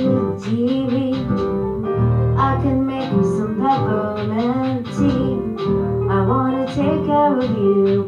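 A song: a voice singing a melody over guitar accompaniment, with steady low notes underneath.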